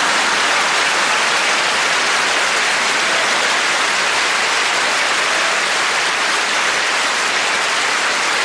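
Audience applauding steadily after a punchline, a dense, even clapping that holds at one level throughout.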